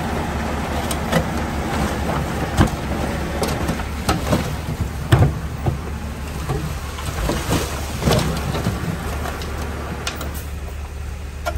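Komatsu D20P bulldozer's diesel engine running steadily, with irregular sharp clanks and knocks from the machine at work, a few seconds apart.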